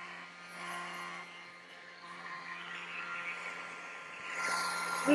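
Battery-powered air pump running steadily with a motor hum, inflating a Wubble bubble ball.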